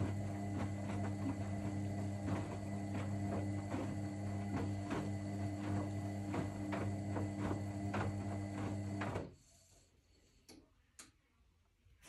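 Candy C2 510 front-loading washing machine tumbling a load in its wash cycle: a steady motor hum with irregular swishes and knocks of the laundry turning in the drum. The sound cuts off suddenly about nine seconds in, leaving a few faint clicks.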